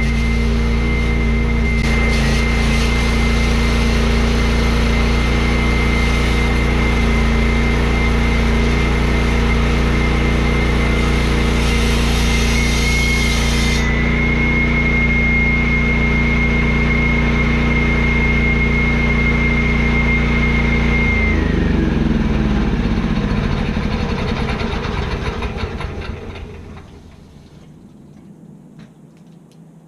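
14-inch walk-behind concrete saw running steadily with a high blade whine and a hiss on top until about halfway, then the engine is shut off and winds down to a stop over several seconds.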